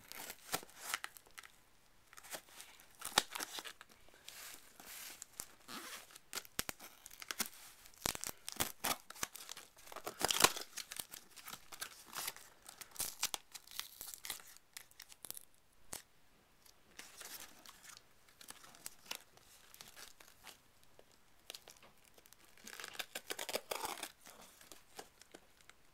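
A cardboard parcel being torn open by hand: irregular rips and crinkles of packing tape and cardboard, the loudest rip about ten seconds in.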